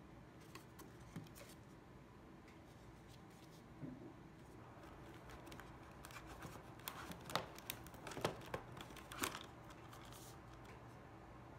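Faint handling noises over a low steady hum: light rustles and clicks as a card is moved. Then, in the second half, a few sharp clicks and knocks as supplement bottles are gripped and lifted out of a rigid cardboard gift box.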